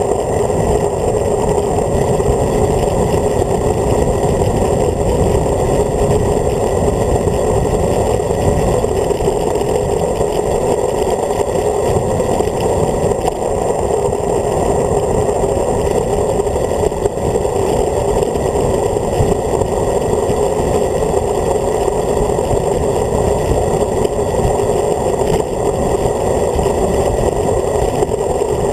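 Wind rushing over the microphone of a road bike's handlebar-mounted camera on a fast descent: a loud, steady rumble.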